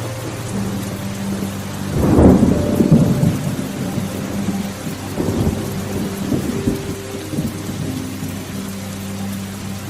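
Steady rain with a loud rumble of thunder starting about two seconds in and lasting a couple of seconds, then fainter rumbles.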